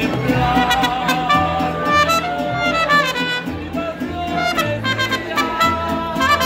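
Live mariachi band playing: a trumpet carries the melody over strummed guitars and a low bass line.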